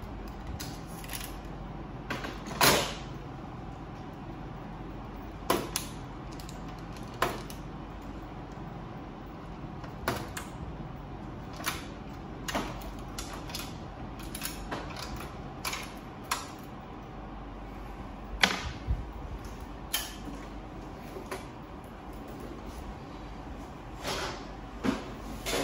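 Irregular clicks and knocks of plastic panels and parts being handled while a Ricoh MP C306 copier's toner hopper housing is taken apart, over a steady low hum. The sharpest knocks come about two and a half seconds in and again about eighteen seconds in.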